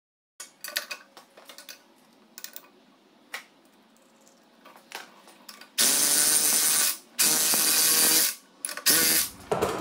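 Light metal clicks and knocks from parts being handled in a Dana 30 axle housing. Then three bursts, about a second each, from a corded electric impact wrench running the pinion nut down onto the yoke. After the bursts the pinion still turns with no resistance: the pinion bearings have no preload yet.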